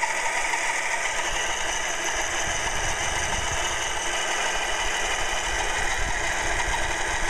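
Redcat Earthquake 8E RC truck's electric motor and drivetrain running steadily with a whine, wheels spinning; from about two and a half seconds in a low rumble joins. The owner takes the wobbling wheel for a sign of bent driveshafts.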